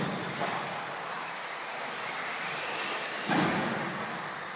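Radio-controlled off-road car running on an indoor track: the high whine of its electric motor and gears comes and goes. There is a short thump about three seconds in.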